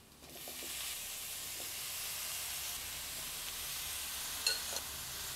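Wet salted bilimbi pieces hitting hot sesame oil and chilli masala in a pan, setting off a steady sizzle that starts almost at once and keeps going. A couple of light clicks near the end.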